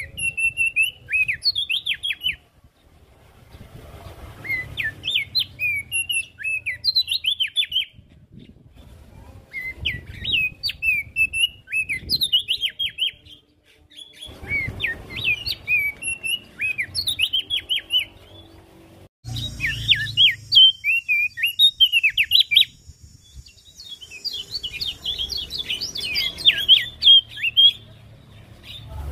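Opior jambul singing: bursts of rapid, chattering chirps a few seconds long, separated by short pauses. Fainter, very high chirps from other small birds sound alongside, and a thin high buzz comes in for a few seconds past the middle.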